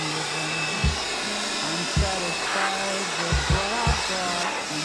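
Background music, with held low bass notes, a gliding higher melody and a few uneven low thumps, over a steady rushing noise.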